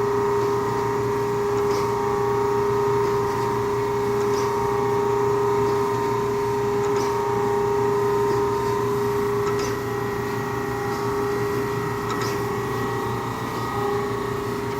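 Brown & Sharpe Micromaster 1236 automatic surface grinder running on automatic feed: a steady machine hum with a constant whine.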